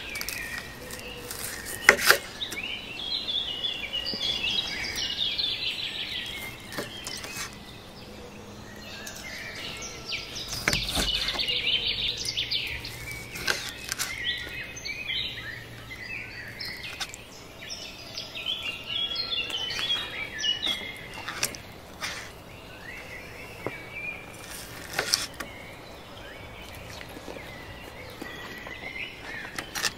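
Small birds chirping and singing repeatedly in the background, with a few sharp clicks, the loudest about two seconds in and again about eleven seconds in.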